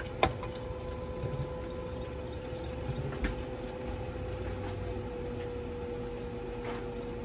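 A piece of chicken frying in hot oil at about 300 degrees, bubbling steadily, with a steady hum underneath.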